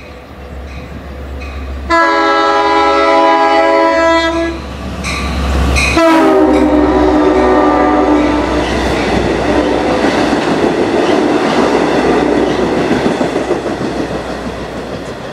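Long Island Rail Road train with double-deck coaches sounding its horn twice as it approaches: one long blast, then a second that drops in pitch as the train reaches and passes. Loud wheel-on-rail rumble follows as the coaches go by, slowly fading toward the end.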